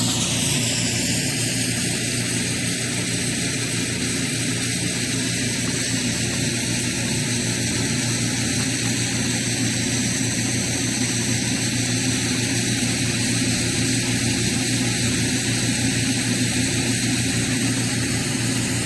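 Snow-making machine running steadily: the constant whirr of its large fan with a low, even hum and a hiss of air and spray, like a propeller engine.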